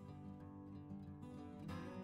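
Faint background music, an acoustic guitar piece.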